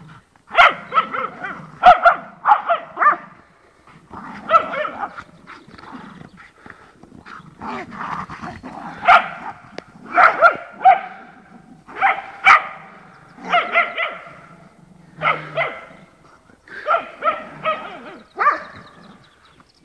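Dogs barking in play, short sharp barks coming in quick runs of two to five, a new run every second or two.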